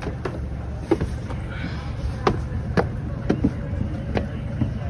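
A steady low rumble under a run of irregular knocks and clicks, about eight in all, from gear being handled aboard a sailboat as it casts off.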